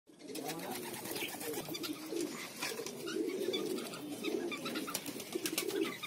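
Domestic pigeon cooing over and over, a low, wavering throaty call that repeats with hardly a break.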